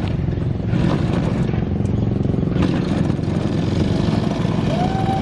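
Small grass-cutter engine running steadily, powering a radio-controlled boat.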